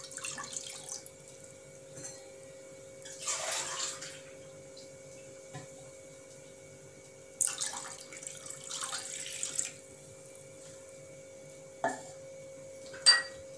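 Water poured from a measuring cup into a pan, in several short splashing pours a few seconds apart. Two sharp knocks come near the end, and a steady hum runs underneath.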